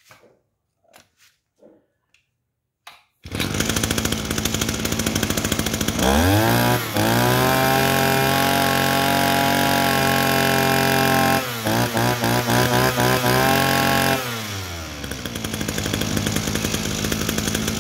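Mitsubishi T170 brushcutter's small two-stroke engine starting abruptly about three seconds in and running. It revs up to a steady high speed, falters and revs again unevenly for a couple of seconds, then drops back to idle near the end.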